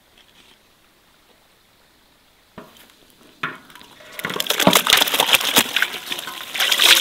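Wet grain mash tipped from enamel basins into a large pot of water: a couple of knocks, then from about four seconds in a steady run of splashing and sloshing.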